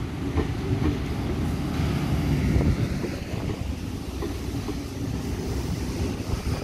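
Sydney Trains K-set double-deck electric train pulling in past the platform, a low rumble of wheels and running gear with faint clicks, mixed with wind buffeting the microphone.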